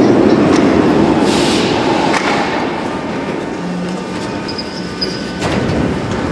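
Moscow Metro train slowing to a stop at the platform, its running noise fading away, with a short hiss about a second in. About five and a half seconds in, the car doors slide open with a sharp knock.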